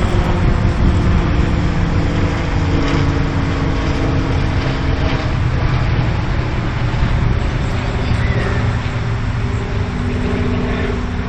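Steady rumbling road traffic noise, with faint engine tones drifting in pitch.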